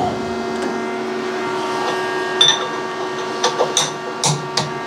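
Old CNC milling machine standing idle with its drives powered, giving a steady hum of several fixed pitches. A few light clicks and knocks from handling come through, mostly in the second half.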